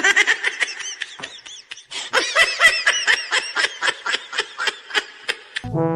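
High-pitched laughter: a rapid run of short repeated 'ha' calls, several a second, that stops shortly before the end, where music with a deep bass line begins.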